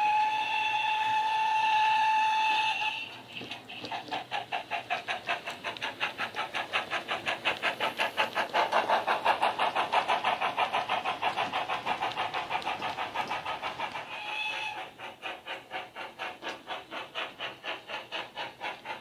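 Hornby GWR King class model locomotive's DCC sound decoder playing steam sounds through its speakers. A long whistle gives way to an even exhaust beat of about four chuffs a second, which grows louder and then fades as the train passes. A short whistle toot near the middle is followed by the chuffing again.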